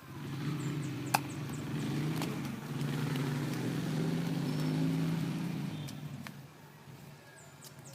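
A motor vehicle's engine passing by, its hum swelling, holding and fading away over about six seconds, with one sharp click about a second in.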